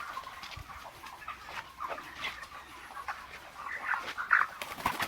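A flock of caged broiler chickens calling and clucking in short, scattered calls, with a louder call about four seconds in.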